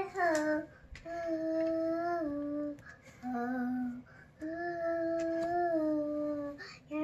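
A young girl singing unaccompanied, a slow melody in several phrases of long held notes with short breaks between them.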